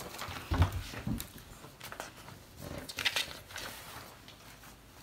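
Two short, low grunts near the start, then a sheet of paper rustling as it is picked up and unfolded about three seconds in.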